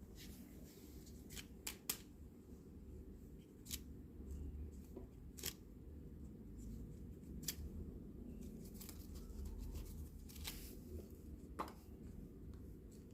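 Small plastic pieces of a miniature toy kitchen set being handled, giving scattered light clicks and taps over a faint low hum.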